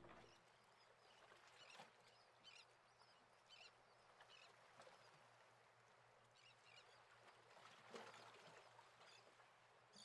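Near silence: faint room tone with a low hum and a few faint, short high chirps scattered through it.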